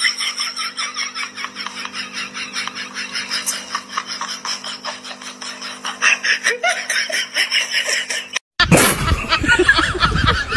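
A person laughing in quick, repeated snickering bursts, over a steady low hum. About eight and a half seconds in, the sound cuts out briefly and a different sound with a wavering, honking pitch begins.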